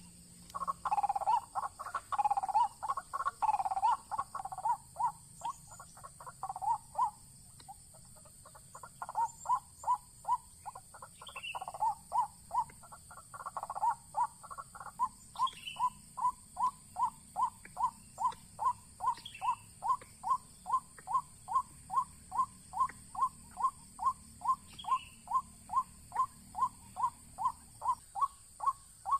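White-breasted waterhen calling: a dense run of repeated calls for the first seven seconds, a brief pause, then a steady series of single notes about two a second. A steady high-pitched tone runs underneath.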